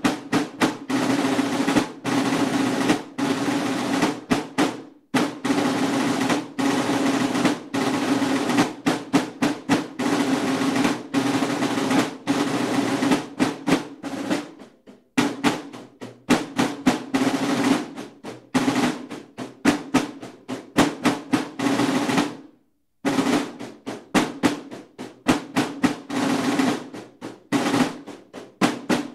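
Buekorps snare drums playing rolls and beats in a marching cadence. The drumming breaks off briefly three times, about five, fifteen and twenty-three seconds in.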